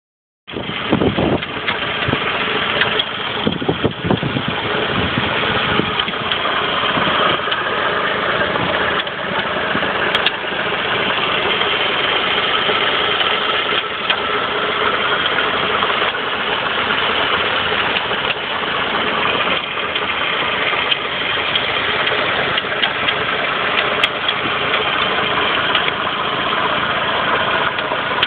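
Saab 9-5 engine idling with a repeated metal-on-metal knock, which the owner places on the left-hand side of the engine, under the engine mount.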